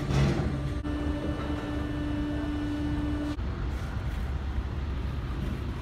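Electric drive of a powered sliding stall gate running as the gate opens: a steady low hum with a steady whine that cuts off suddenly a little after three seconds in.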